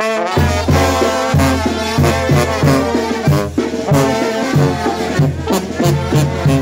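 Walking brass band with sousaphone, trombones and horns striking up a tune, the sousaphone playing a steady, regular bass line under the horns.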